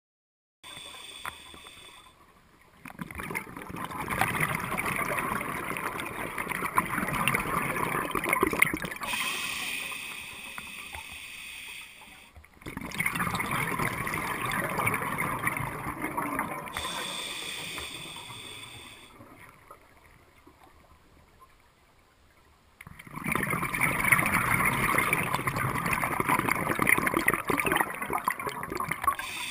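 A scuba diver breathing through a regulator underwater: three long gurgling bursts of exhaled bubbles, each several seconds long, with quieter stretches between them as the diver inhales.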